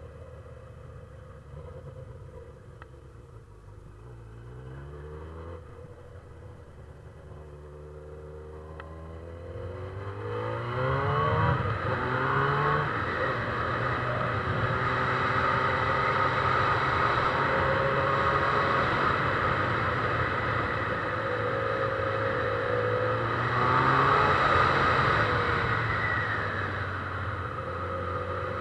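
Honda CB1000R's inline-four engine under way. It runs quietly for the first ten seconds with one rise in revs, then accelerates hard about ten seconds in and holds a steady, louder drone. It revs up again a little past twenty seconds and eases off near the end.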